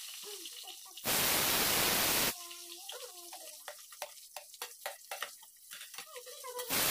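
Two abrupt bursts of loud, even hiss, each about a second long, one about a second in and one near the end. Between them come light clicks of a metal spatula against a frying pan as ingredients are pushed in.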